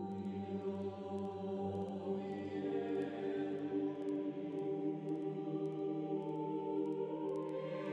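Background music: slow, sustained choral chords, held long and shifting gradually to new harmonies.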